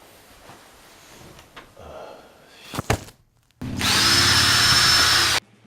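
A sharp click, then a loud, harsh buzzing noise with a steady high whine for about two seconds that starts and cuts off abruptly.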